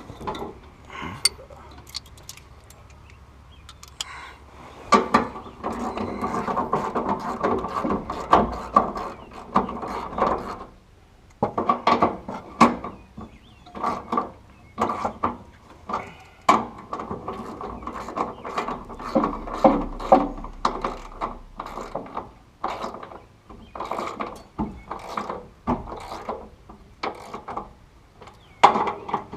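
Hand ratchet clicking as bolts are run in, in two long runs of rapid clicks with short pauses and scattered metal clicks between.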